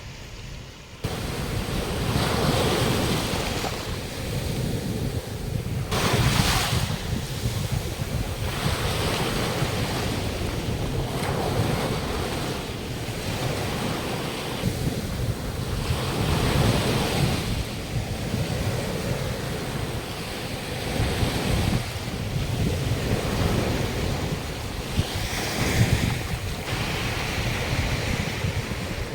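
Sea waves washing in on a beach, swelling and falling every few seconds, with wind buffeting the microphone in a low rumble.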